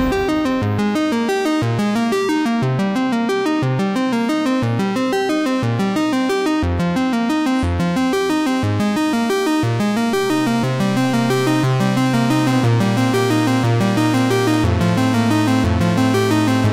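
Background music of quick, repeating pitched notes, with a held bass note coming in about ten seconds in.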